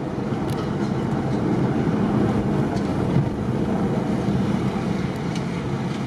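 Steady engine and road noise of a car driving along at speed, heard from inside the cabin.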